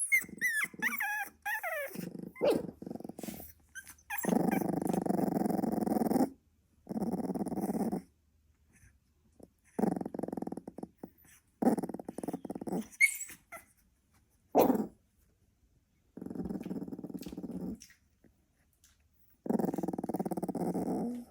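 Sleeping Staffordshire bull terrier puppy growl-snoring: a series of rough, growly snores, each lasting one to two seconds, with short pauses between breaths. It opens with a couple of seconds of high, wavering whimpers.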